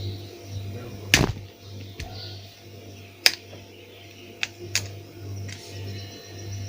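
Small repair tools clicking and tapping against a phone's circuit board as parts are pried off: a few sharp clicks, the loudest about a second in and another a little after three seconds, over a steady low hum.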